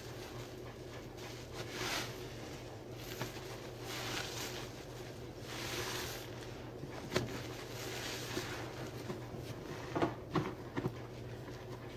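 A sponge full of soapy dish-soap suds being squeezed in slow, repeated squishes. A few short sharp clicks or taps come near the end.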